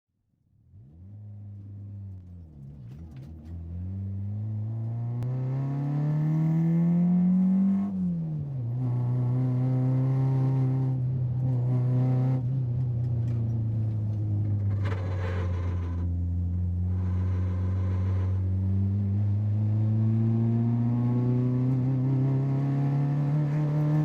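Car engine pulling away and accelerating, its pitch rising, dropping sharply at a gear change about eight seconds in, holding steady, then rising again near the end. Bands of higher hiss come and go in the middle.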